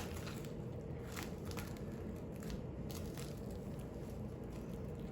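A spoon spreading thick blueberry batter in a baking pan: soft scraping and squishing with scattered light clicks of the spoon against the pan.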